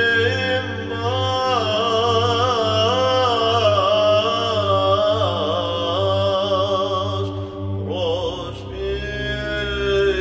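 Byzantine chant in the slow (argo) style: a psaltis sings a winding, ornamented melody over a steady held ison drone. About eight seconds in, the melody breaks and the drone moves to a new, lower note.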